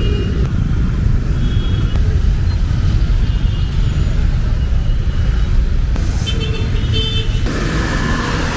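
Busy bus-stand traffic in the rain: vehicle engines run with a steady low rumble under a wash of noise. A couple of short horn toots come about six to seven seconds in.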